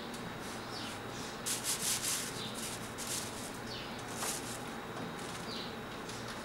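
Crepe paper rustling and wooden skewers rubbing against it and each other as they are laid down and pressed flat by hand, in several short bursts, the loudest about a second and a half to two seconds in.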